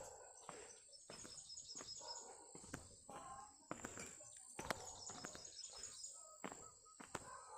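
Faint footsteps walking downhill on a path, about two steps a second, with birds chirping softly and a steady high-pitched drone in the background.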